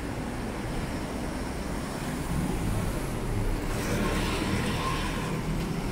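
Road traffic: a steady low hum of passing vehicles, with one vehicle going by close, building from about halfway and fading near the end.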